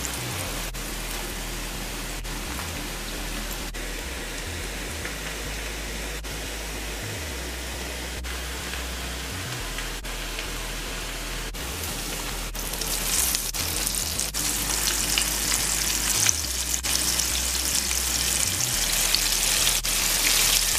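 Flour-coated bangamary fish frying in hot oil in a pan: a steady sizzle that grows louder and busier about two-thirds of the way through as more fish go into the oil.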